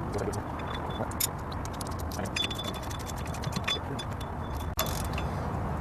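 Ratchet wrench clicking in quick runs as bolts on the rear wheel hub are tightened, over a steady low background rumble.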